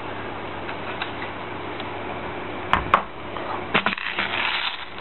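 Handling noise of a Jing Gong G36C airsoft replica: two sharp knocks of the plastic rifle against a wooden table about three seconds in, then a run of small clicks and rattles, over a steady low hiss and hum.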